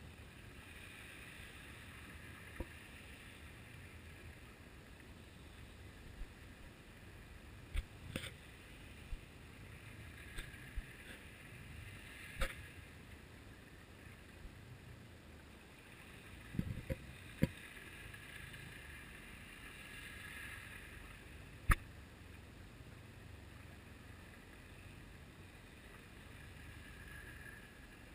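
Muffled underwater noise picked up by a GoPro in its waterproof housing on a lead jigger, with scattered sharp clicks and knocks, the loudest about 22 seconds in.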